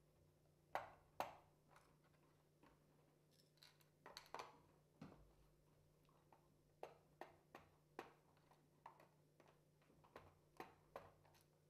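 Light clicks and taps of a hand screwdriver working screws out of an HP DV9000 laptop's plastic bottom panel. There are two sharp clicks about a second in and a cluster around four seconds in, then single ticks about every half second, over a faint steady hum.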